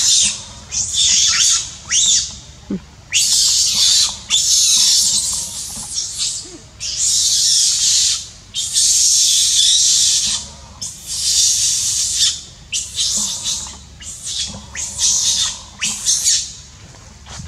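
Young macaque crying loudly: a long run of shrill cries, most about a second long, separated by short gaps.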